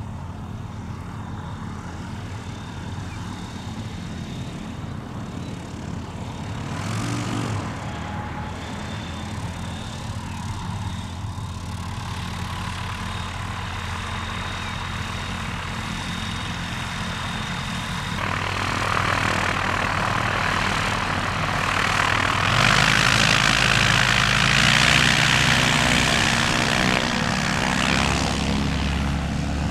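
Tecnam P92 light aircraft's propeller engine running as it taxis, growing steadily louder in the last third as it comes close, with a shift in engine pitch near the end.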